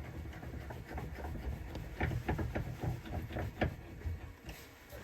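Scattered light clicks and knocks of a vice and small pen-kit parts being handled at the bench, thickest around the middle.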